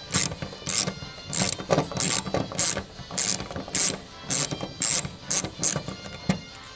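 Ratchet socket wrench clicking in short back-and-forth strokes, roughly two a second, as a nut is undone from an antenna mounting stud.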